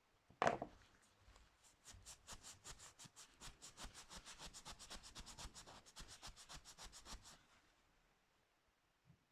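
Hand sanding of a screwdriver during restoration: a single sharp scrape about half a second in, then rapid, even back-and-forth strokes at about seven a second, which stop a couple of seconds before the end.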